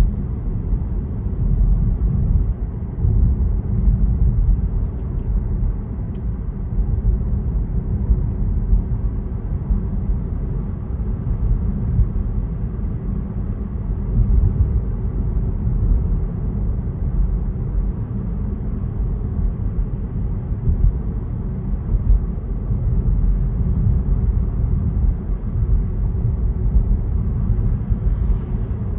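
A car driving along a road: a steady low rumble of tyres and engine.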